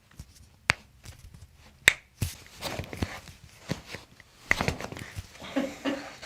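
Sharp joint cracks from a chiropractic adjustment: a few separate pops, the loudest about two seconds in.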